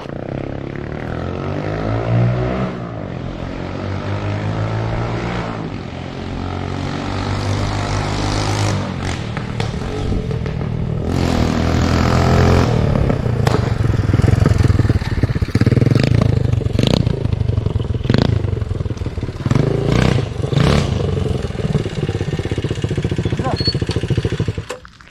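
Modified motorcycle with a handmade custom exhaust silencer, running and being revved, its pitch rising and falling. About halfway through it gets louder, with a string of sharp quick blips of the throttle.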